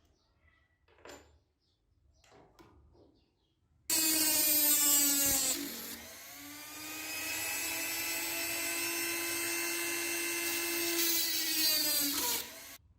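A small high-speed electric power tool, of the drill or rotary-tool kind, switches on with a high whine. Its pitch sags briefly as it meets the work, then it runs steadily for about six seconds before being switched off. A few faint clicks come before it starts.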